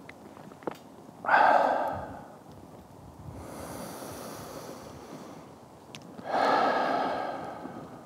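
A man breathing slowly and deeply: two loud breaths out through the mouth, about a second in and again near the end, with a quieter, airy breath in between them.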